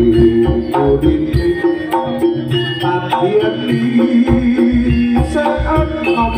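Live jaranan music: an ensemble of drums and percussion beating a busy rhythm, with held melody tones sounding over it.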